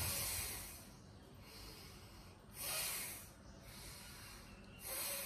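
A woman breathing hard through her nose in the paced breathing of a yoga shoulder-rotation exercise: three loud breaths about two and a half seconds apart, with softer breathing between.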